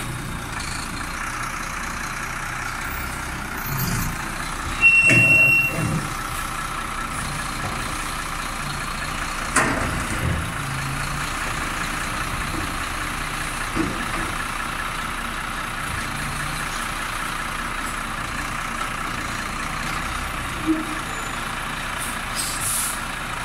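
Front-loading garbage truck's diesel engine running steadily as it works a bin, with a loud hiss and high squeal from its air brakes about five seconds in. A few metal clanks follow as the lift forks engage and start raising the bin.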